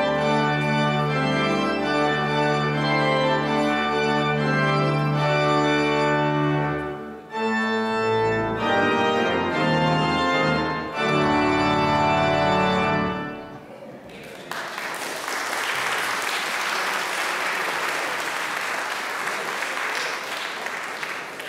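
Pipe organ playing sustained chords over a held bass note, pausing briefly about seven seconds in and closing on a final chord about thirteen seconds in. Applause follows to the end.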